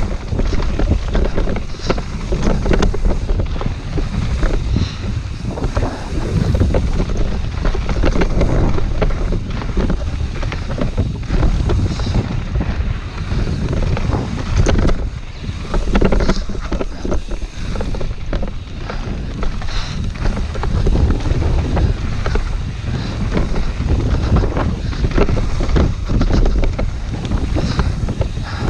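Wind buffeting a GoPro's microphone during a fast mountain-bike descent on a dirt singletrack: a loud, steady rumble. Many short clicks and knocks from the tyres and bike running over the stony trail sound through it.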